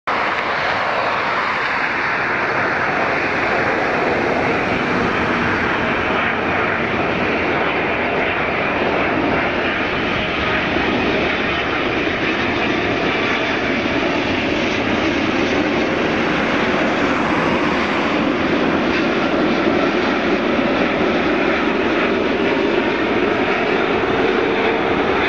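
A Boeing 777 airliner on landing approach passing overhead, its twin jet engines making a steady, loud jet noise that grows a little louder in the second half as it nears.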